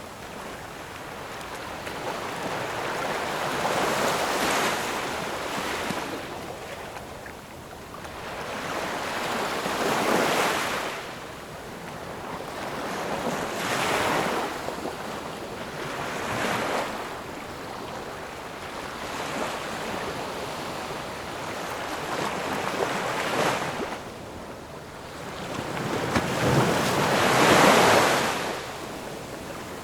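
Ocean waves breaking and washing on a shore, in slow swells every few seconds, the biggest one near the end.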